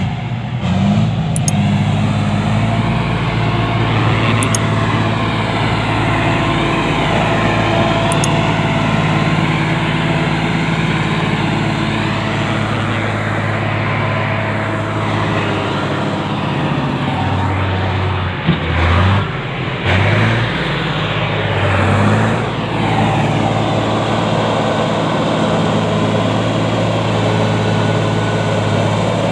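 Heavy diesel engines of earthmoving machinery, an excavator and a bulldozer, working under load while cutting into a hillside. The engine note is steady, then drops and picks back up a few times a little past the middle.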